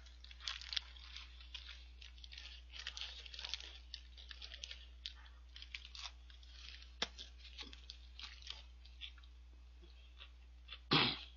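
Close-up chewing and crunching of a Lotteria shrimp burger, the fried breaded shrimp patty crackling in a run of short, irregular crunches. A louder brief noise comes near the end.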